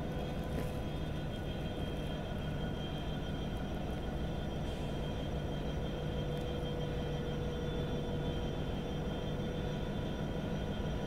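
82 class diesel-electric locomotive running steadily as it leads a train slowly into a platform: a constant low engine hum with a few steady whining tones above it.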